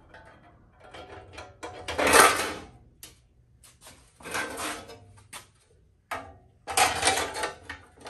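Pressed-steel motorcycle frame panels being handled and seated against the engine: irregular metal scraping and clanking in a few bursts, the loudest about two seconds in.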